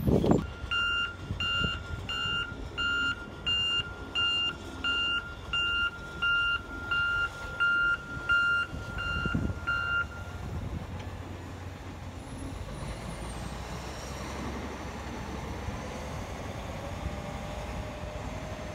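Backup alarm of a John Deere 844K wheel loader beeping steadily, about three beeps every two seconds, as the loader reverses; it stops about ten seconds in. Under it and after it, the loader's diesel engine runs steadily, with a faint rising whine near the end.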